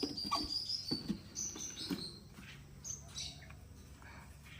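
Thin, high peeps from crested myna nestlings, several in the first two seconds and one more about three seconds in. A few soft knocks and rustles come near the start.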